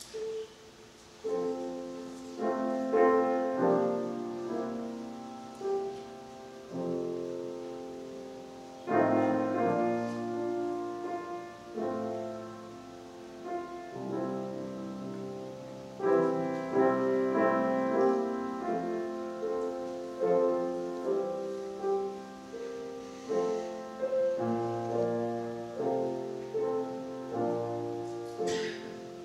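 Slow, soft piano music: chords struck and left to fade, changing every second or two, starting about a second in.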